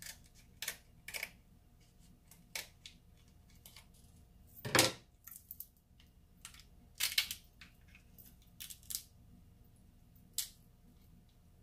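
King crab leg shells being cracked open: a string of sharp cracks and snaps, the loudest about five seconds in.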